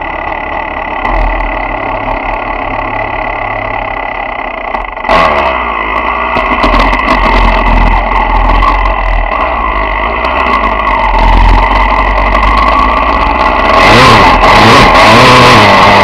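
Dirt bike engine running, then revved hard about five seconds in as the bike pulls away, its revs rising and falling repeatedly and loudest near the end.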